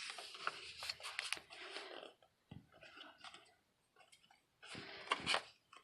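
Paper rustling and crinkling in two irregular spells, typical of the pages of a picture book being handled and turned.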